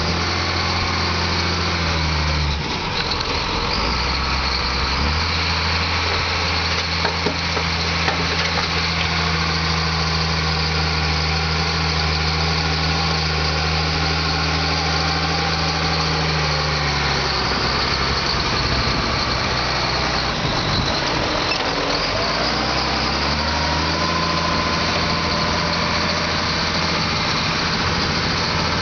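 Engine of a tractor working a RODA dozer blade, running steadily. Its speed dips for a moment near the start, falls off for several seconds past the middle and then picks up again, with a couple of sharp knocks about a quarter of the way in.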